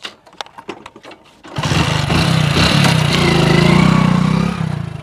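Motorcycle engine starting and riding off: the engine catches about a second and a half in and runs loudly for about three seconds, then drops away near the end.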